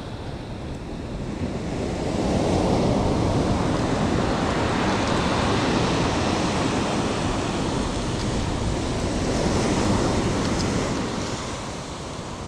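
Ocean surf washing in, swelling about two seconds in and easing off near the end, with wind on the microphone.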